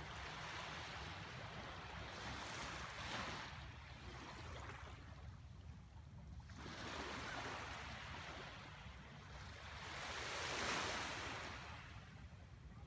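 Surf washing on a beach, swelling and fading every few seconds over a low steady rumble.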